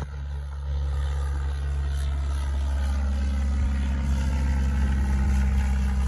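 Single-engine light aircraft climbing out low overhead just after takeoff, its piston engine and propeller a steady drone that grows louder about a second in and stays loud.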